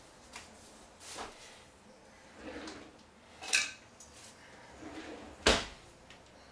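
Kitchen utensil drawer being worked: a few light knocks and rattles, a sharp metallic clink about halfway through as metal tongs are taken out, and a loud thump near the end as the drawer is pushed shut.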